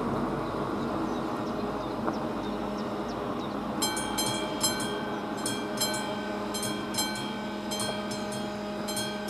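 A level crossing's classic mechanical warning bell starts ringing about four seconds in, with repeated strokes about two a second, as the crossing activates for an approaching train. A steady background rumble runs under it.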